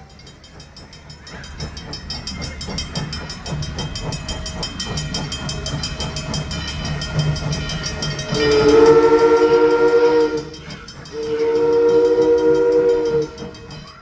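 Steam locomotive hissing steam with a fast rhythmic beat, growing louder over the first couple of seconds. About eight seconds in, its chime whistle sounds two long blasts of about two seconds each, with a short gap between them. Two long blasts are the standard signal for releasing brakes and moving off.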